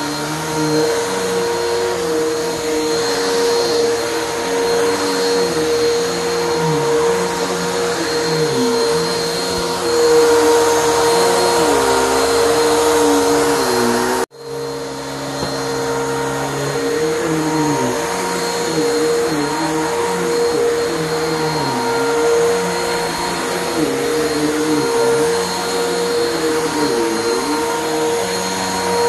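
Vacuum cleaner running on carpet, picking up dry soil and carpet powder before steam cleaning. It has a steady high whine and a lower hum that wavers up and down in pitch every second or two, and it cuts out for an instant about halfway through.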